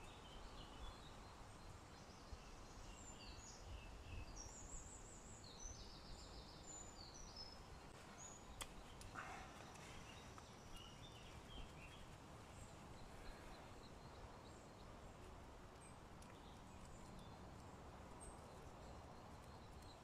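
Faint outdoor ambience with small birds calling, twittering chirps between about two and seven seconds in, and one sharp click a little after eight seconds.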